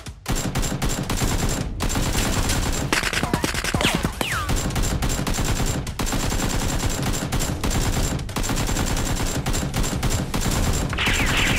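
Continuous rapid automatic gunfire sound effects, many shots overlapping like several machine guns firing at once, with a brief falling whine about four seconds in.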